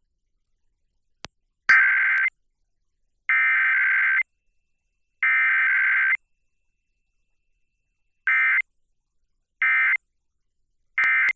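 Emergency Alert System SAME data signal for a Required Weekly Test. Three buzzy digital bursts of under a second each carry the alert header. A few seconds later come three shorter bursts, the end-of-message code. There is no attention tone between them.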